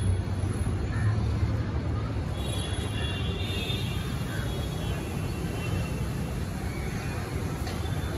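Steady outdoor background noise: a low rumble of distant traffic, with a few faint high tones about two and a half seconds in.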